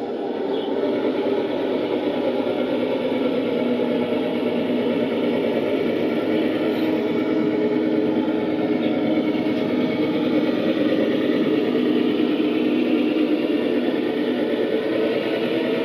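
Traxxas TRX-4 1:10 radio-controlled crawler truck driving slowly: a steady whir of its electric motor and gearbox, with its tyres rolling on a laminate floor.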